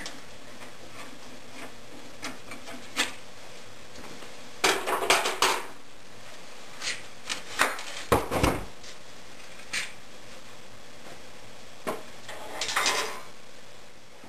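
Plywood forms and clamps being handled against a wooden wall: scattered knocks, a burst of clatter about five seconds in, a heavy thud just after eight seconds, and more clatter near the end.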